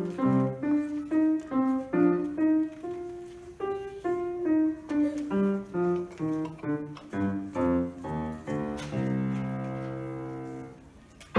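Solo piano playing a short run of separate, detached notes, ending about nine seconds in on a held final chord that rings and fades away.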